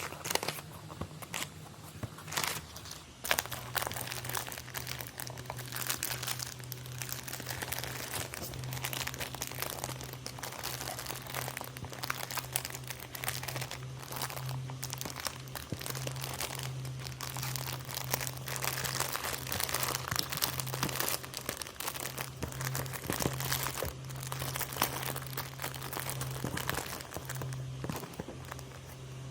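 Packaging being crinkled, crunched and torn open by hand as a parcel is unboxed: a continuous run of irregular rustles and crackles. A steady low hum comes in about three seconds in.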